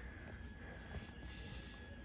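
Faint room tone: a low hum and light hiss, with a faint steady high-pitched tone.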